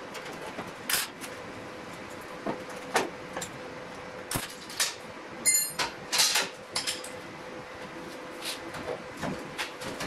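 Hand handling of a headlight and the sheet-steel grille panel around it: scattered light clicks, taps and small metallic knocks at irregular intervals. A faint steady hum runs beneath.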